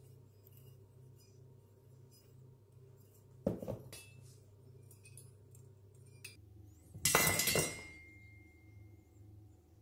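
Metal parts of a disassembled model jet turbine engine knocking and clinking together as they are handled and set down: a short clink about three and a half seconds in, then a louder clatter about seven seconds in whose ringing dies away over about two seconds.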